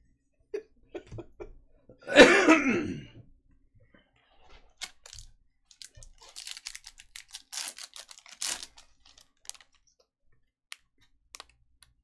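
Topps Chrome foil card pack crinkling and tearing open in the hands: a run of sharp crackles and clicks. About two seconds in, a short loud vocal sound falling in pitch.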